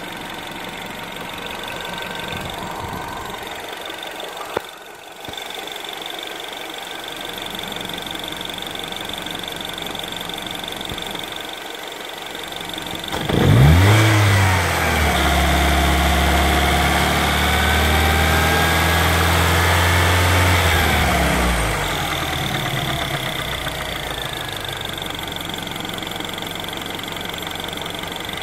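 R56 MINI Cooper engine starting about 13 seconds in, running at a raised idle, then dropping to a steady idle about 22 seconds in. It is being checked for timing chain noise after a timing chain replacement. There is a single click about 4.5 seconds in.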